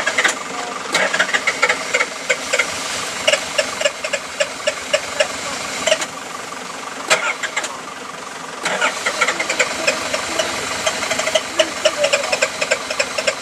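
Off-road 4x4's engine running hard under load as it churns through deep mud, with a dense rattle and spatter of mud and water thrown by the spinning wheels. It eases for a couple of seconds about six seconds in, then picks up again.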